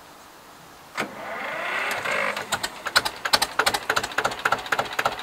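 A vintage tractor engine being started. A sudden clunk comes about a second in, then a rising whir as it cranks, then the engine catches and runs with a rapid, uneven knocking beat.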